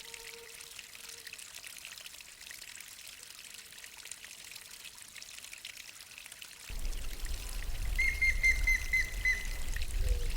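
Water of a waterfall pouring and splashing. About two-thirds in, a deep rumble joins and the sound gets louder. Near the end a bird calls in a quick run of short high notes.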